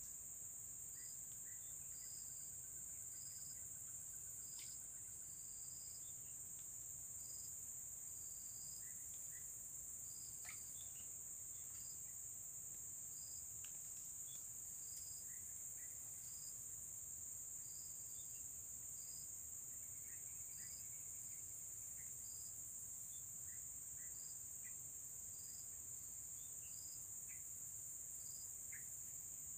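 Insects calling: a steady high-pitched drone, with a shorter high chirp repeating about once a second over it, and a few faint scattered chirps lower down.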